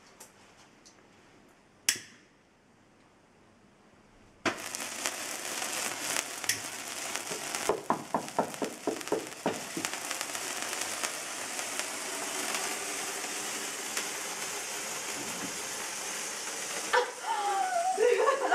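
Fountain sparkler candles on a birthday cake hissing and crackling, starting suddenly about four seconds in after a single sharp click. A quick run of taps sounds midway, and excited voices break in near the end.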